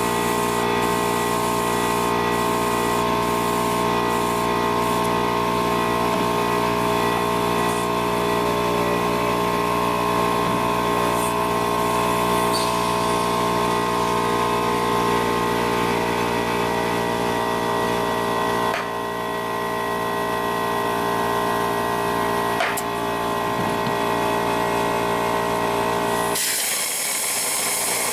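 A small machine motor running steadily with a constant-pitched whine, changing abruptly near the end.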